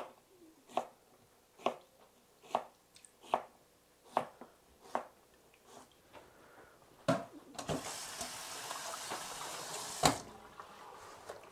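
Chef's knife dicing onion on a cutting board: seven even chopping knocks, a little more than one a second, over the first five seconds. Later a steady hiss of running or pouring liquid lasts about two seconds, between two louder knocks.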